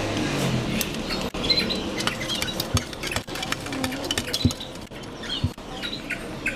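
Pug puppy's claws clicking and scratching against a glass pane, with light taps and rustling, and short high squeaks scattered through.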